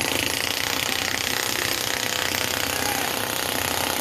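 A steady, rapid mechanical clatter that holds at an even level.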